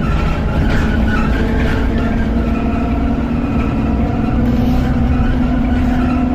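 Alexander Dennis Enviro400 double-decker bus under way: a steady engine drone whose hum rises a little in pitch about a second and a half in and again past the middle.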